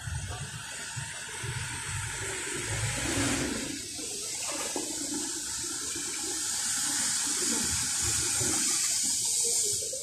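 Rain falling on a shallow pond, a steady hiss, with water sloshing and splashing as people wade through the mud and shallow water.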